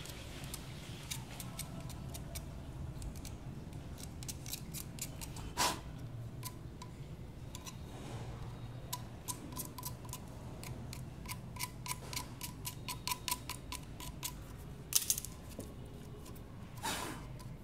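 Scissors cutting into a plastic PVC pipe: a run of sharp clicks and snips as the blades bite and the plastic gives. There are louder snaps about a third of the way in and twice near the end.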